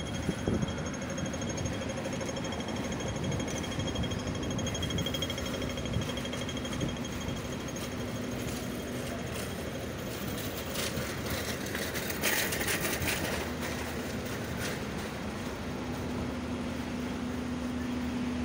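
Busy city street traffic noise. Heavy trucks' diesel engines idle close by, their low hum growing stronger near the end, and a brief hiss comes about twelve seconds in.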